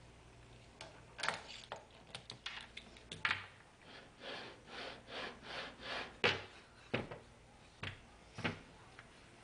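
Clicks and knocks of MDF and aluminum parts being handled. Then the router's Z-axis carriage is rolled on its ball bearings back and forth along an aluminum angle rail in a string of short runs, followed by a few single sharp knocks about a second apart.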